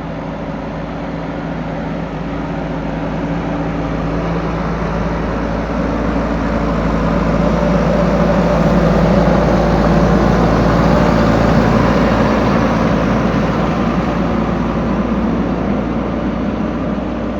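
Heavy diesel engine running steadily, growing louder toward the middle and fading a little near the end.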